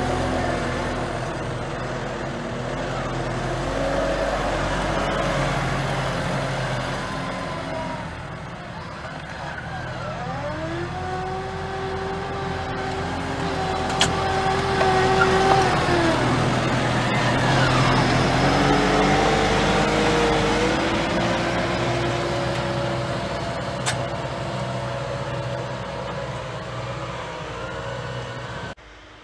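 New Holland T6.165 tractor engine working under load as it pulls a cultivator through soil, its pitch rising, holding steady for a few seconds and falling again several times. Two sharp clicks stand out, about halfway through and again later.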